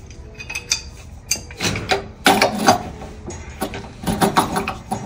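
Pipe wrench clinking and clacking against a brass pressure relief valve as it is set on, turned and reset, tightening the valve into a water heater tank: a string of short metal clicks at uneven intervals.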